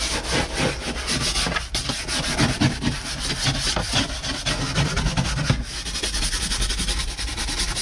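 Stiff-bristled hand brush scrubbing cleaning product into a textured plastic truck dashboard in rapid back-and-forth strokes. Near the end, a microfiber towel rubs over the dash.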